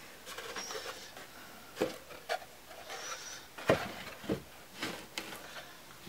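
Wooden birdhouse pieces being handled on a workbench: a few irregular light knocks and scrapes of timber on wood, with two brief faint squeaks.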